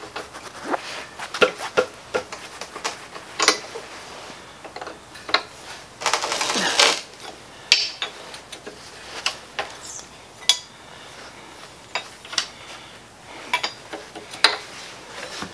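Metal wrench clicking and clinking against the spark plugs and cylinder head of a Model T engine as the plugs are loosened, in scattered, irregular clicks. About six seconds in there is a harsher noise lasting about a second.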